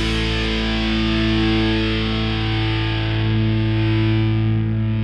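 Background rock music: a single distorted electric guitar chord held and ringing out, slowly dying away.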